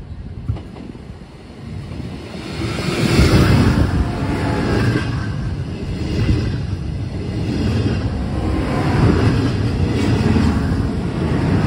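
Two coupled DSB MG (IC4) diesel trainsets approaching and passing close by at speed. A rumble grows over the first few seconds, then about three seconds in becomes a loud rush of wheels on rails and train noise. It swells and eases as the cars go by.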